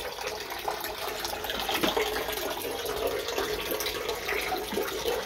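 Water running steadily, as from a tap or a filling cistern, with a faint steady hum and a few light clicks over it.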